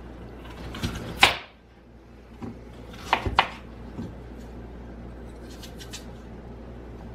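Kitchen knife cutting peeled apples on a plastic cutting board: a few sharp knocks of the blade going through the fruit onto the board, the loudest about a second in, then a quick cluster of three a little after three seconds in.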